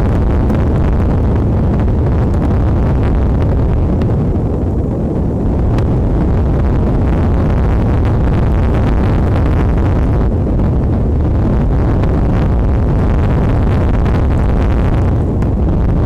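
Strong wind buffeting the nest camera's microphone: a loud, steady low rumble with no break.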